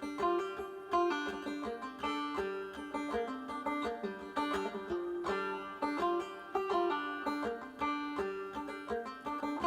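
Background music: a fast, plucked banjo tune in a bluegrass style.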